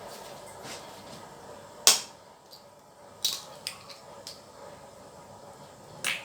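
A few sharp clicks and taps from kitchen items being handled, the loudest about two seconds in, a small cluster in the middle and one more near the end.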